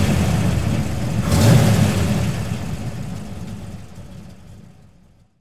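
Logo-reveal sound effect: a deep rumble with two whooshing swells, the second about a second and a half in, then fading out to silence near the end.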